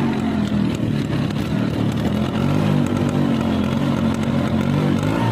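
Bajaj Classic scooter's two-stroke single-cylinder engine running after a kick start, its pitch rising and falling gently as it is revved.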